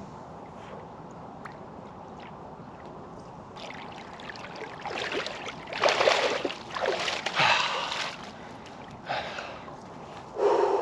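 Water splashing as a person wades out of icy river water: a run of loud splashes in the second half, over a steady background rush of water.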